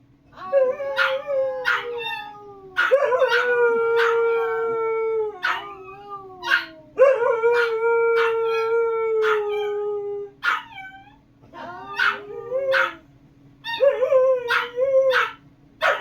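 Long howls, each held for one to three seconds and bending down in pitch at the end, broken by repeated short, sharp hiccup sounds.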